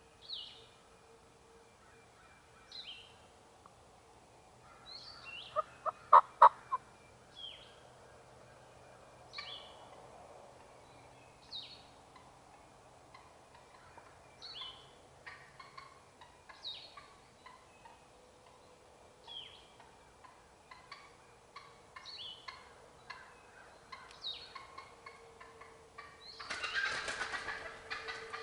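Wild turkey hen cackling: a quick run of sharp, loud yelps about six seconds in. Near the end comes the noise of her wingbeats as she flies down out of her roost tree. A small bird calls a short falling chirp every second or two throughout.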